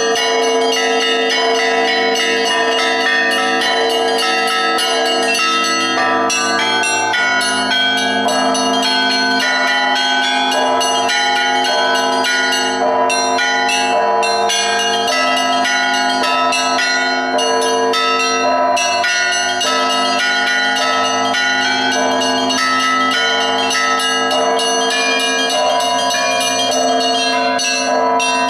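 Russian Orthodox church bells rung by a single bell-ringer in a continuous peal (zvon) in the Polesie style. Rapid strikes of the small bells run over the held ring of the larger bells without a break.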